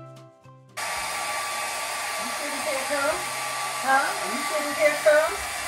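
Handheld hair dryer blowing steadily while hair is blow-dried over a round brush. It comes in suddenly just under a second in.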